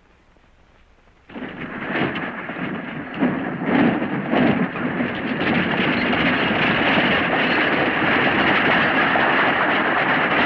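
A team of horses galloping and a wagon rattling along at speed: a dense clatter of hooves and wheels that starts suddenly about a second in, on an old, muffled film soundtrack.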